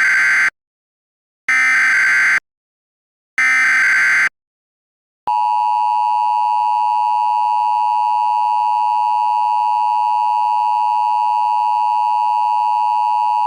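Emergency Alert System header: three one-second bursts of SAME digital data tones about two seconds apart. Then, about five seconds in, the steady two-tone EAS attention signal (853 and 960 Hz together) starts and holds, announcing an emergency alert.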